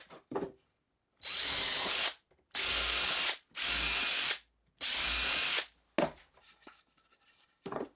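Cordless drill with a 1/8-inch bit boring pilot holes in a kiln-dried framing-lumber 2x3: four short runs of under a second each, with brief pauses between. A single knock follows about six seconds in.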